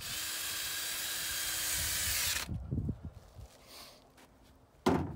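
Cordless drill with a 5/16 nut-driver bit running for about two and a half seconds as it drives a hose-clamp screw tight, its pitch dropping just before it stops. A few soft knocks follow, then a sharp knock near the end.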